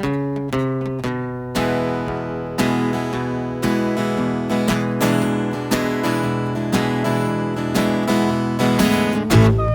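Music: an acoustic guitar strumming chords, about one strum a second.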